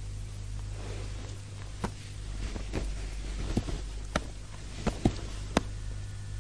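Footsteps: a few irregular light knocks over a low steady hum.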